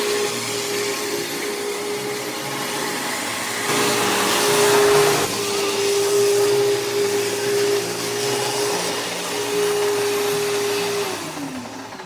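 Vacuum cleaner running with a steady rushing noise and whine, louder for a couple of seconds about four seconds in, then switched off near the end, its motor whine falling as it spins down.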